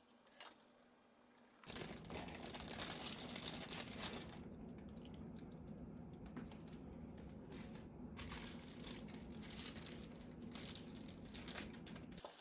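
Chicken thighs frying in a pan: a steady crackling sizzle that starts suddenly about two seconds in.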